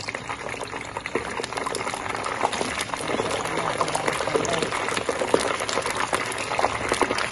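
A fresh batch of kibbeh balls deep-frying in hot oil in a small saucepan: a dense sizzle full of small crackling pops, growing louder over the first couple of seconds.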